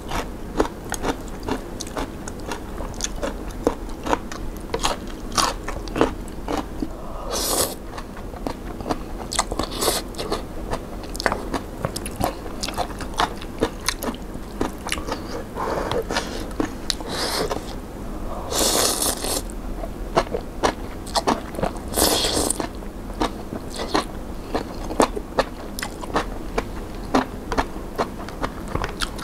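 A person chewing and biting crunchy vegetables and mushrooms close to the microphone: many small crisp crunches and mouth sounds, with a few short, louder hisses in between.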